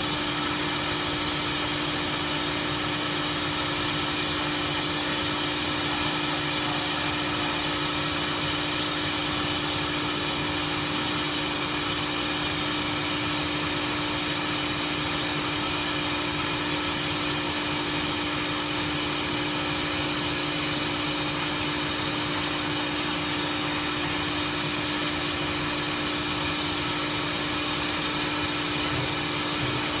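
Automatic submerged-arc light pole welding machine running steadily, a constant machine noise with a strong, even hum.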